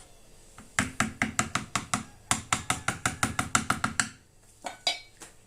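Spoon knocking against the side of a bowl while lemon zest, juice and sugar are stirred briskly: a fast, even run of about seven or eight knocks a second for about three seconds, then two or three softer clicks.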